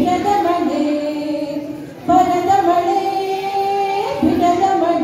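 A dance song playing, with a child's and a woman's singing voices over music in long held notes; the sound dips briefly about two seconds in.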